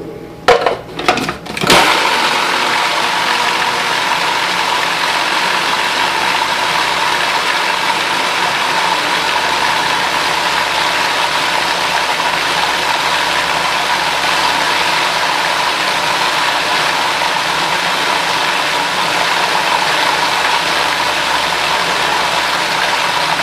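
A couple of knocks as the feed-tube pusher is pressed down, then a countertop food processor's motor runs steadily with a constant whine, chopping fresh basil into pesto with olive oil, garlic, cheese and pine nuts.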